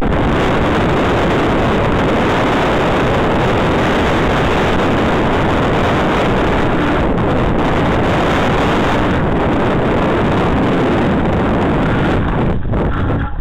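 Wind buffeting the microphone of a camera on a mountain bike coasting fast down a loose gravel road, mixed with the rumble of the tyres over the stones. Loud and steady, easing slightly and turning more uneven near the end.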